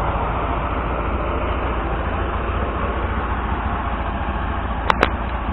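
ZAZ-968M Zaporozhets's air-cooled V4 engine running steadily on the move, a low drone with road noise. Two short clicks about five seconds in.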